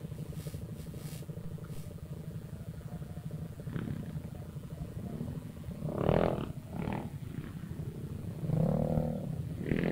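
Vespa matic scooter's single-cylinder engine idling and pulling away slowly in stop-and-go traffic: a steady low rhythmic pulse, swelling briefly about six and nine seconds in. The engine is a freshly built '63 spec' unit still being broken in.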